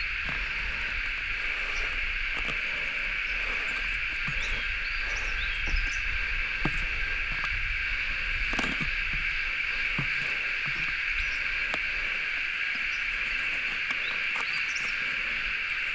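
Steady, high-pitched chorus of insects droning without a break, with a few soft knocks about six to nine seconds in from the fillet knife working on the wooden chopping board.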